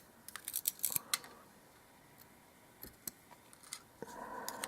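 Small sharp metallic clicks and ticks, a quick run of them in the first second and a few more around three seconds in. These are lock pins, springs and tweezers being handled while a euro cylinder lock is taken apart.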